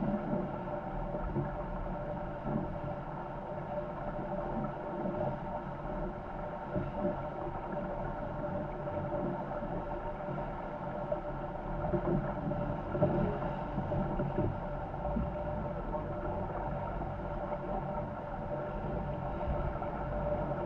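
Corsair F-24 MKII trimaran sailing fast in strong wind: steady rush of water along the hulls and wind, with a steady hum on one pitch running underneath and a few louder gusts of noise past the middle.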